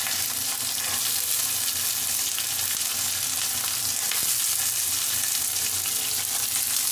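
Sliced onions sizzling steadily in hot oil in a metal kadhai, stirred with a metal spoon: the first sauté of onions in the tempering for sambhar.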